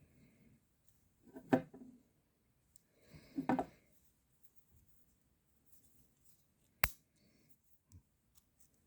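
Handling a muzzleloading rifle's lock: two short scraping rattles, then one sharp metallic click about two-thirds of the way in and a small knock after it.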